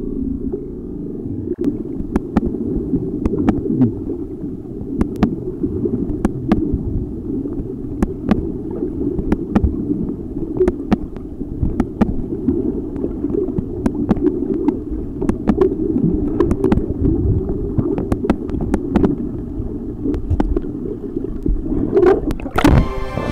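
Muffled underwater rumble of water and swimming movement picked up through an action camera's waterproof housing, with many sharp clicks scattered throughout. Music comes in just before the end.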